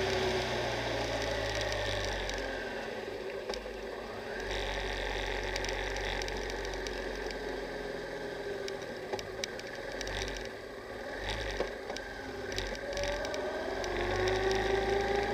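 Honda Transalp XL600V's V-twin engine running while riding, its revs falling over the first couple of seconds, easing along more quietly through the middle, then climbing again near the end. Low wind rumble underneath and a few sharp rattling ticks.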